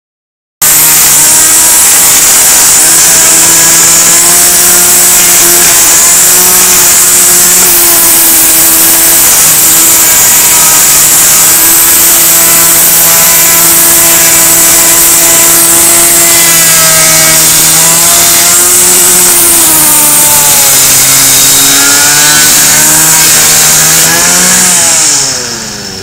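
String trimmer running at high throttle with its line whipping against a wooden tabletop to sand it: a steady, loud engine note under a strong hiss. Near the end the throttle is let off and the engine note falls away.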